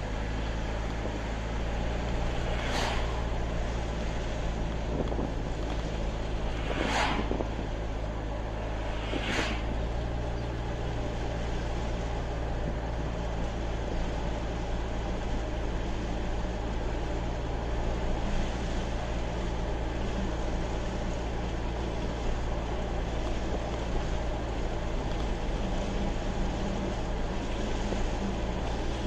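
A car driving at highway speed, heard from inside the cabin: a steady low engine hum under tyre and wind noise. Four brief whooshes in the first ten seconds as oncoming vehicles pass.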